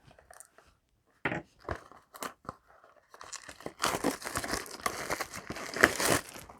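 Foil trading-card booster pack being handled with a few sharp crinkles, then torn open with a dense run of crinkling and tearing foil about three seconds in.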